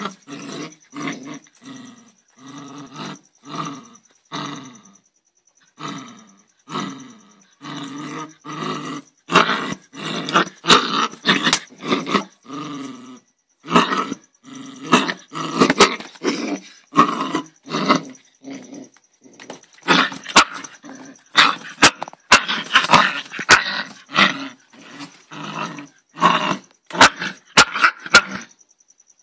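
Angry dog growling and barking in short aggressive bursts, a few a second. The bursts get louder and come closer together after the first several seconds.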